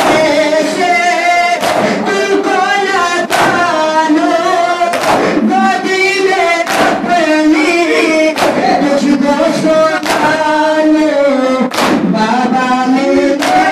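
A noha (Shia lament) sung by men's voices, with a loud unison slap about every second and a half to two seconds, eight times: the mourners beating their chests in matam, in time with the chant.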